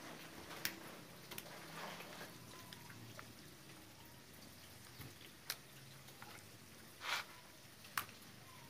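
Cats eating small pieces of chicken meat: faint, scattered wet clicks and smacks of chewing, a few of them sharper and louder near the end.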